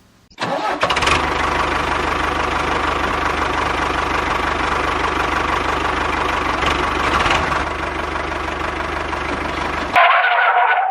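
Small mini tractor engine running steadily with an even, rapid pulsing. Near the end it cuts abruptly to a different, higher sound for under a second.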